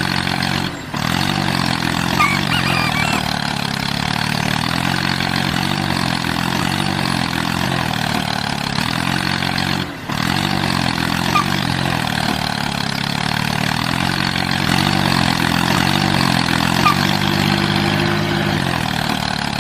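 A vehicle engine running steadily, its pitch wavering slightly, with brief drop-outs about a second in and again about ten seconds in, where the sound seems to start over as a repeating loop.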